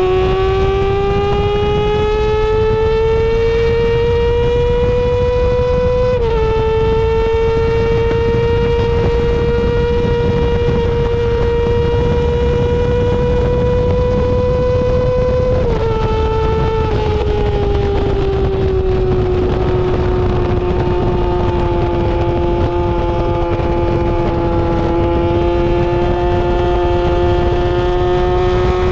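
Yamaha R6 inline-four sport bike with an SC-Project titanium exhaust running at high revs, one high, steady engine tone climbing slowly. Its pitch dips briefly about six seconds in and again about sixteen seconds in, then eases lower and creeps back up near the end.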